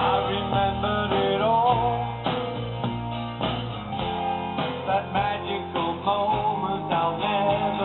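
Music led by guitar, with strummed chords and melodic lines.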